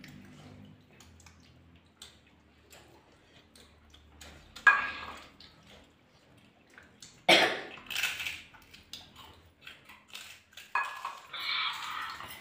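Light clinks and knocks of steel tumblers, plates and bowls handled during a meal, with small eating noises. Three louder short noisy bursts stand out, about five, seven to eight, and eleven seconds in.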